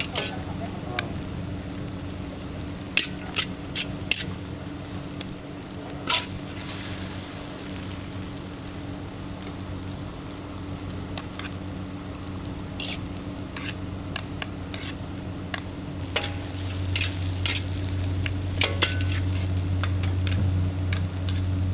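Char kway teow noodles sizzling and frying in a wok, with sharp clanks and scrapes of a metal spatula against the wok as they are stirred. A low steady hum grows louder near the end.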